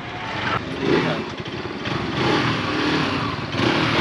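Motorcycle engine revving, its pitch wavering and the sound growing steadily louder.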